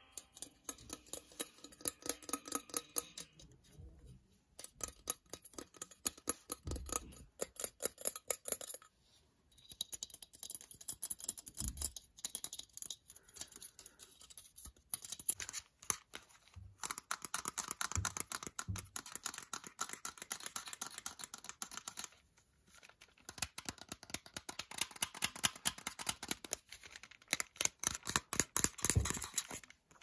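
Fast tapping and scratching on electronics, on a laptop's metal case and on plastic headphone earcups: quick runs of sharp clicks broken by a few short pauses.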